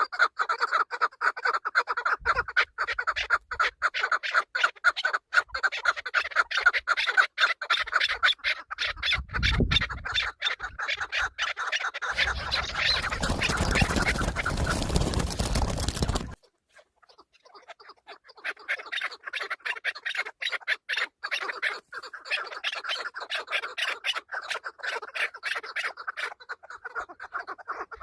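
Chukar partridge calling in rapid, repeated clucks. A stretch of loud, even noise joins it about twelve seconds in and cuts off suddenly a few seconds later, and the clucking carries on.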